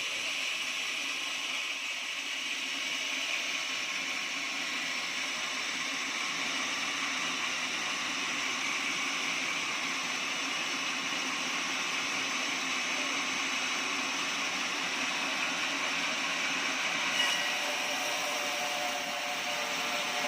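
Portable sawmill blade cutting steadily along an oak log: a continuous, even sawing noise with one brief click near the end.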